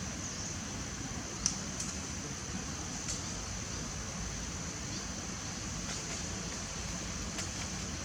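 Steady background noise with a constant high-pitched hiss and low rumble, broken by a few brief sharp clicks, the loudest about a second and a half in.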